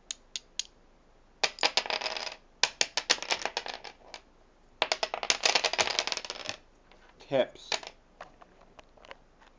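Rubik's Cube being twisted by hand: fast runs of plastic clicks from the layers turning, in three bursts of one to two seconds with a few single clicks between.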